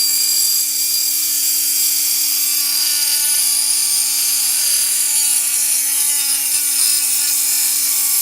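Dremel 4000 rotary tool with a saw-blade cutting wheel running at a constant speed and cutting: a steady high motor whine under a loud, even hiss from the blade biting into the material.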